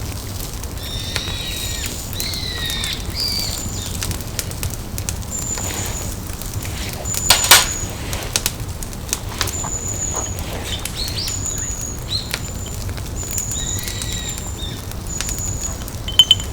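Birds calling in the woods: short, thin, high notes repeated every second or two, with a few curving lower chirps, over scattered small crackles and one louder crack about halfway through.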